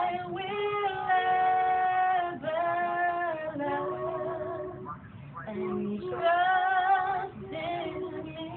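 Two women singing together without accompaniment, drawn-out notes with vibrato, at times in two-part harmony, with short breaks between phrases.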